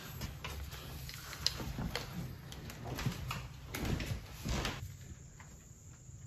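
Scattered light clicks and knocks of a power feed unit being lifted off the end of a Bridgeport milling machine's table and handled, stopping about five seconds in, over a steady low hum.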